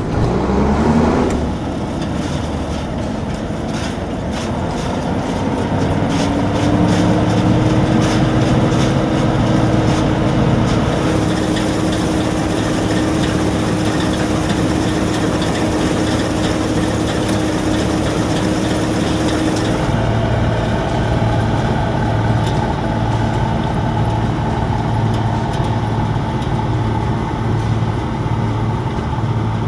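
Bizon Z050 combine harvester at work, its SW400 diesel engine and threshing machinery running under load. A whine rises in pitch over the first few seconds and then holds steady. About 20 s in the sound changes abruptly to an evenly pulsing low throb as the combine cuts grain.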